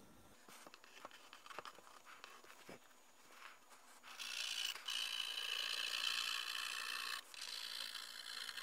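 Pencil lead scratching across paper in hatching strokes for shading. It is faint, with a few light ticks, for the first few seconds, then steady from about four seconds in, dips briefly and goes on a little softer near the end.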